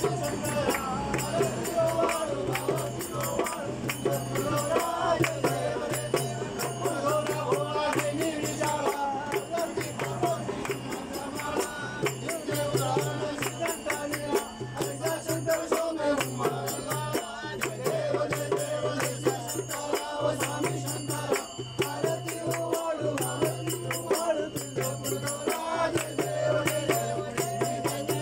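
A group of people singing a Ganpati aarti together, with hand-clapping keeping the beat.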